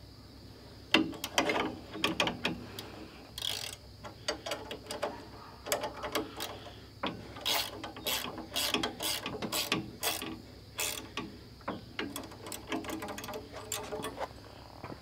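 Ratchet wrench clicking in irregular runs as it turns a bolt on a front loader's bucket level indicator during adjustment.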